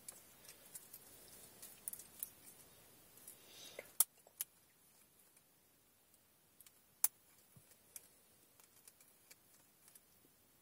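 Faint clicks and light rattling of a plastic car-stereo wiring-harness connector being handled as old wires are undone from it; the sharpest clicks come about four seconds and seven seconds in.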